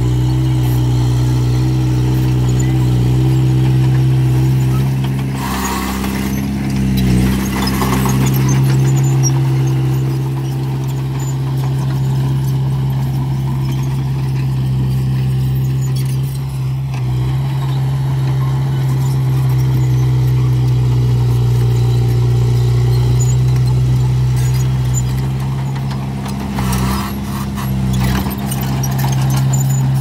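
Small crawler bulldozer's diesel engine running steadily as it pushes earth, with short bursts of louder noise about six to eight seconds in and again near the end.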